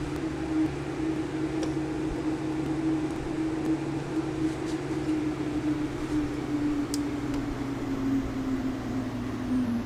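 A steady machine hum whose tone slowly drops in pitch, with a few faint clicks.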